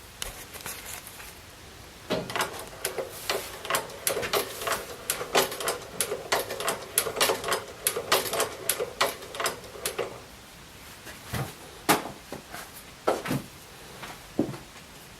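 Singer patcher sewing machine mechanism clattering: a run of quick, uneven clicks and knocks for about eight seconds, then a few separate knocks near the end.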